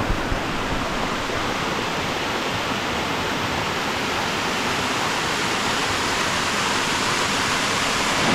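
Waterfall rushing steadily as water pours over rock ledges, growing slightly louder toward the end.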